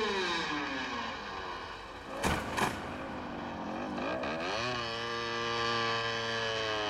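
Dirt bike engine easing off, its pitch falling, then two sharp knocks a little after two seconds in. It revs up again about four seconds in and holds a steady note.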